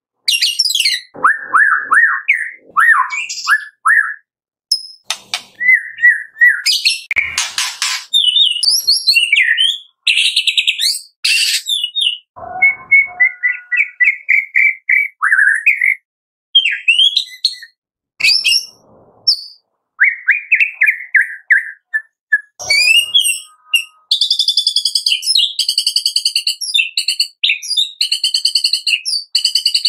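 Male white-rumped shama singing: loud, varied whistled phrases, short trills and sliding notes with brief pauses between them, ending in a fast run of rapidly repeated notes in the last few seconds.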